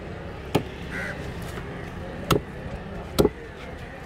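Heavy curved fish-cutting knife chopping through an emperor fish into a wooden table, three sharp strikes.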